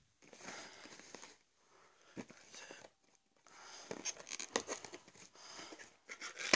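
Packaging on a mini-fridge box being torn and worked open: rustling, tearing and crinkling in irregular bursts, with a few sharp clicks and short pauses.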